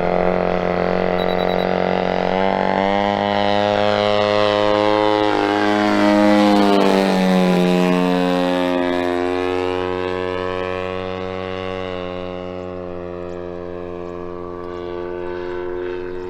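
Two-stroke 120cc DA gasoline engine of a 110-inch Extreme Flight Yak 54 RC plane running in flight with a steady propeller drone. The pitch steps up as the throttle opens, and the drone grows loudest about six seconds in. It then drops in pitch as the plane passes and fades somewhat.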